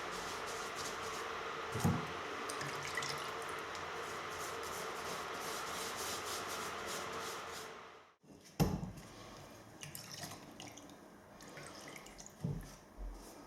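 An old paintbrush dabbing and brushing liquid wood preservative onto a timber joist: quick wet strokes and dripping, with a knock about two seconds in. The sound cuts off suddenly about eight seconds in, and after it there are quieter knocks and rubbing.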